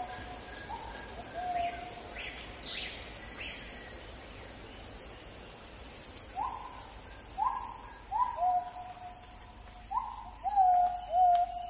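Steady high insect drone with a bird calling over it again and again: short notes that slide down and then hold. A few calls come near the start, a run of them from about six seconds in, and the loudest near the end.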